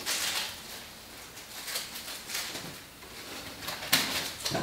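Kitchen knife slicing cherry tomatoes in half on a wooden cutting board, with soft cuts and a quick run of sharp taps of the blade on the board near the end.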